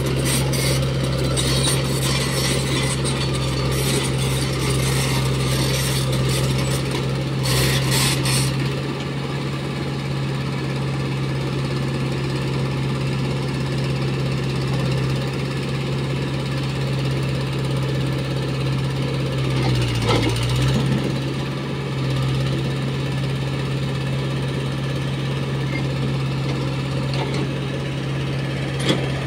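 Diesel machinery running with a steady low hum, the nearest being a crawler excavator working concrete railway sleepers. For about the first eight seconds there is continuous rattling and scraping as its bucket drags the sleepers, then mostly the engine hum.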